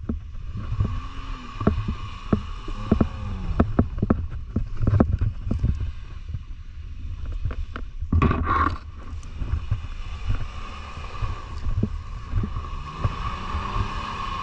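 An off-road 4x4's engine running as it drives over rough, boggy ground, with many sharp knocks and a louder burst of noise about eight seconds in.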